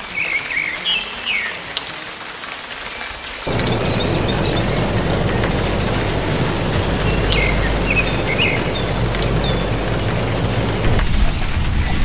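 Steady rushing-water noise with birds chirping over it in short notes, often in quick groups of three or four. About three and a half seconds in, the water sound thickens and takes on a deep rumble.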